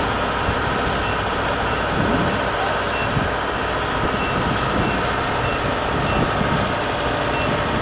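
Heavy diesel engine running steadily, with a short high beep repeating about once a second.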